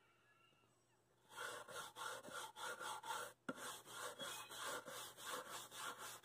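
Wire brush scrubbed back and forth over the charred wood of a chair seat, starting about a second in at about three strokes a second, with a short pause and a knock midway. It is knocking the loose char off the burnt wood to bring out the grain, the brushing stage of a shou sugi ban finish.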